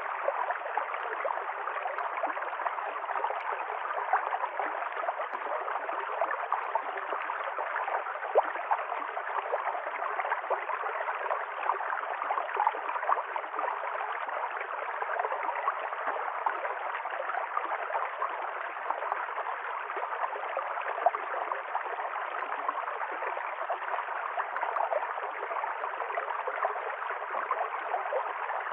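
Stream water running and gurgling steadily over rocks, a continuous rushing with small quick splashes in it.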